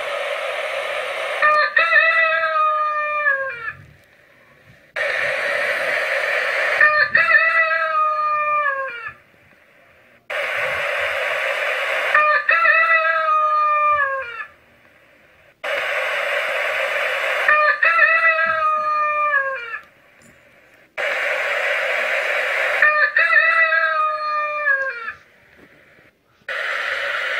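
Rooster crowing over and over, one crow about every five seconds, each starting rough and ending in a falling, drawn-out note; the crows are alike enough to be one recording looped.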